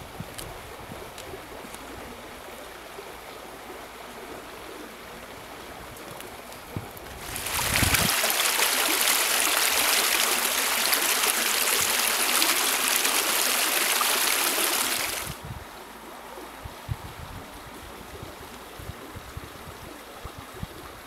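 Creek water running. A faint steady rush to begin with; about seven seconds in, the sound of close flowing water rises sharply, holds for about eight seconds, then drops back to the faint rush.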